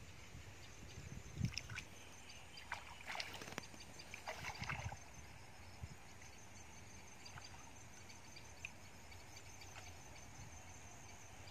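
Shallow water sloshing and splashing as a person wades and handles floating bottles in a muddy creek: a few short splashes in the first five seconds, then only faint water and background sound.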